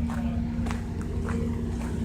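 Engine running steadily: a low rumble with a constant hum, plus a few faint ticks.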